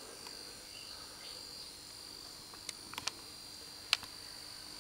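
A faint, steady high-pitched whine, with a few sharp clicks in the second half, the loudest about four seconds in.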